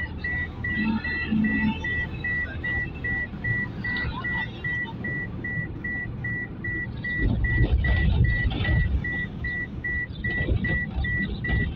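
Vehicle driving on a road, its engine and road noise a steady low rumble that grows louder and rougher about seven seconds in. Over it runs a steady high electronic beep repeating about three times a second.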